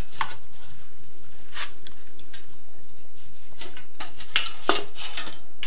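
Thin galvanised steel drywall profile handled and pressed into place by hand: a few scattered sharp metallic clicks and taps, most of them close together toward the end.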